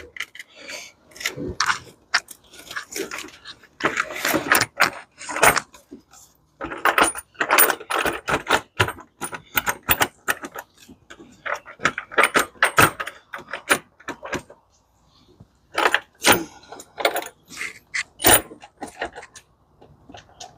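Irregular metallic clinks, clicks and rattles of hand work on engine parts and tools, with a brief lull followed by a few sharper knocks near the end.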